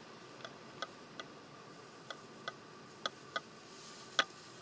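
Irregular sharp clicks, about eight of them at uneven spacing and the loudest near the end, over a faint steady hiss inside a moving car's cabin.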